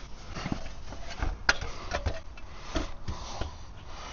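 Irregular clicks, taps and knocks of hand tools and metal parts being handled while working on a car's gearbox.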